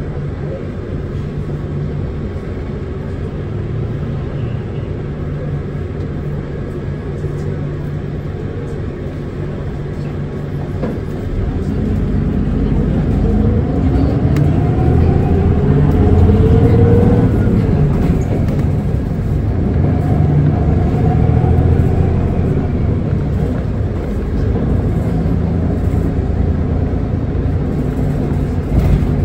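Hino Blue Ribbon City Hybrid city bus heard from inside the cabin. Its drivetrain hums steadily at first, then grows louder about ten seconds in as the bus accelerates, with a whine rising in pitch and then falling back.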